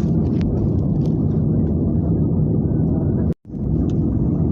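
Steady low rumble of aeroplane engine and air noise, with an abrupt dropout to silence for a split second a little over three seconds in.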